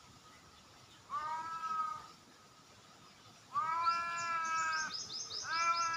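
Orange tabby cat meowing three times: a short meow about a second in, a longer drawn-out one past the middle, and a third starting near the end. A rapid series of short high chirps runs alongside the last two meows.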